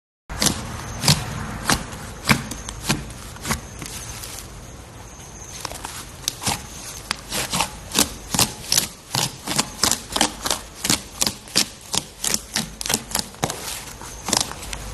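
Slime being squeezed and pressed by hand, giving a run of sharp clicks and pops, a few spaced ones at first and then about three a second from midway on.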